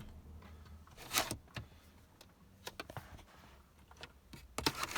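Scattered sharp plastic clicks and knocks from handling the newly fitted rear-armrest cup holder, with the loudest click about a second in and a quick cluster near the end.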